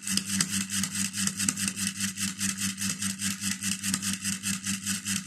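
Homemade vibration-triggered earthquake alarm going off: a rapid, even buzzing that pulses about six times a second over a steady low hum.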